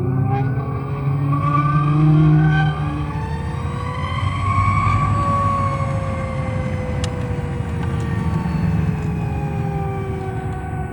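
Zero electric motorcycle's motor whining as it rides, heard from inside the bike's cargo compartment. The whine climbs in pitch as the bike accelerates, peaks about halfway through, then falls slowly as it slows. A steady low rumble runs underneath.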